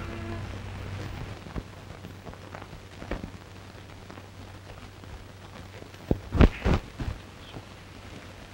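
The last note of film score dies away, leaving the hum, hiss and crackle of an old film soundtrack. About six seconds in comes a quick run of four sharp knocks or clatters.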